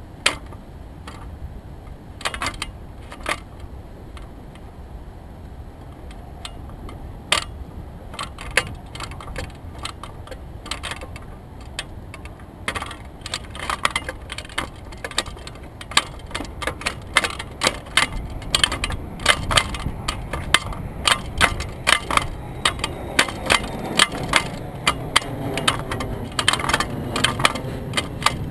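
Sharp clicks and light rattles of gear knocking in a canoe, sparse at first and coming thick and fast over the second half, over a steady low rumble.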